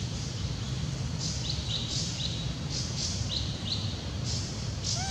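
Bird chirping: a run of short, high chirps repeated every half second or so, starting about a second in, over a steady low background rumble. A short falling call comes at the very end.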